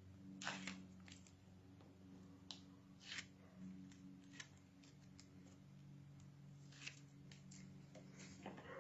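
Faint, short rustles and clicks of paper as the backing is peeled off tape strips on a small square of cardstock and the card is handled, over a faint low steady hum.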